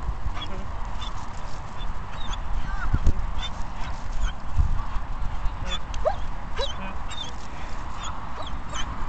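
Dogs yipping and whining in many short, high-pitched squeaks, excited at chasing a ball, over a steady low rumble.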